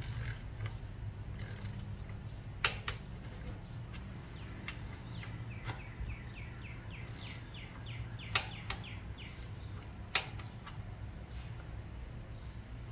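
Click-type torque wrench breaking over with a sharp click three times, a few seconds apart, as the air cleaner backing plate bolts reach their set torque. A steady low hum runs underneath.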